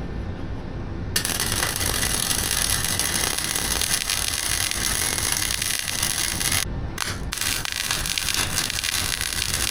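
Forney Easy Weld flux-core wire-feed welder's arc crackling steadily as a bead is laid. It starts about a second in, cuts out briefly about two thirds of the way through, then picks up again.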